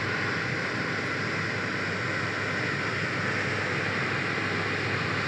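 John Deere S680i combine harvester running steadily while threshing rice: a constant, even machine noise with a faint low hum.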